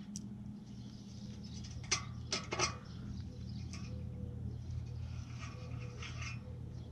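A hand ratchet working a fog-light bracket bolt: a few short metallic clicks and clinks, bunched about two to three seconds in with fainter ones later, over a steady low hum.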